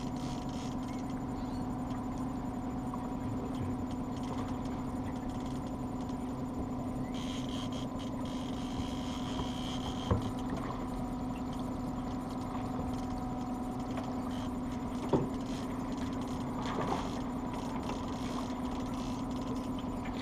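Boat's outboard motor running steadily at low speed, a constant even hum, with a couple of light knocks around the middle.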